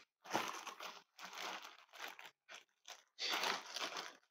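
Clear plastic bag crinkling and rustling in irregular bursts, the longest and loudest near the end, as tightly packed beer cans are worked out of a cardboard shipping box.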